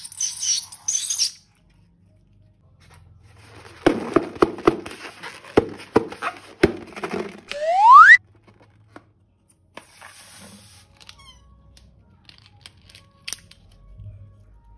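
Crackling and squeaking of a slime-filled balloon being handled, ending in a short squeal that rises in pitch about eight seconds in, the loudest sound; a brief hiss opens it.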